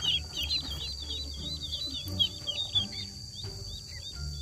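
Duckling peeping: a run of short, high chirps several times a second, thinning out in the second half.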